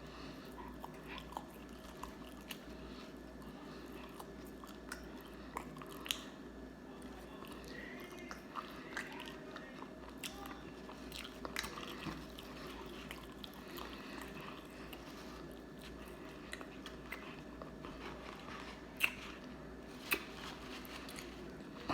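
Close-miked eating: chewing and biting with scattered short crunches and clicks, two of them louder near the end, over a steady low hum.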